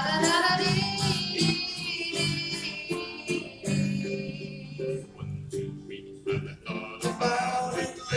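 A live band playing an instrumental break over strummed plucked strings. A lead line slides upward during the first second and a half, then holds a long note.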